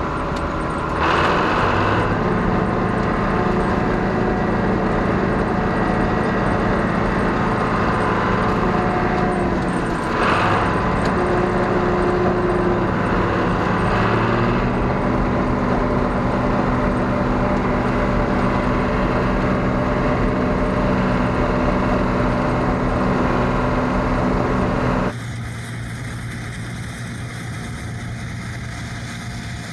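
John Deere 6600 combine's six-cylinder diesel engine and threshing machinery running steadily while harvesting. It gets louder about a second in and again around ten seconds in, then drops suddenly to a quieter, more distant-sounding run near the end.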